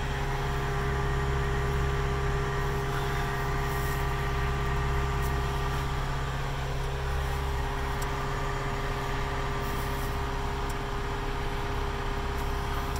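Cat 279D compact track loader's diesel engine running steadily at a constant speed, heard from inside the cab.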